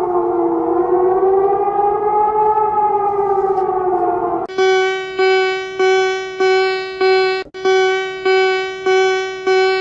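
Emergency alert alarm: a slowly wavering two-tone siren wail for about four and a half seconds, then it switches to a string of repeated beeps, about three every two seconds, each fading before the next.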